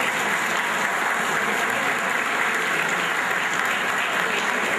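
Many people applauding steadily.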